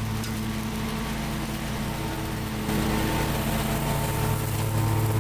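Lawn mower engine running steadily, getting a little louder about halfway through.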